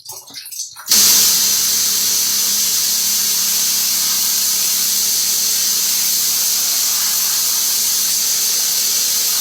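A hard water spray blasting a screen-printing screen in a washout booth, rinsing out water-based ink. It is a loud, steady hiss that starts abruptly about a second in, with a faint steady hum beneath it.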